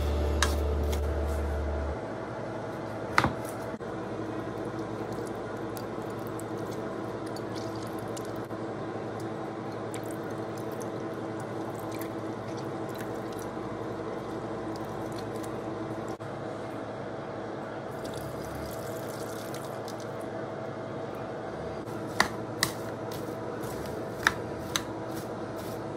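Wet squishing and dripping as lemons are juiced in a handheld squeezer and a spoon stirs diced raw fish and vegetables in a large bowl. A few sharp clicks of the utensil against the bowl come about three seconds in and again near the end, over a steady background hum.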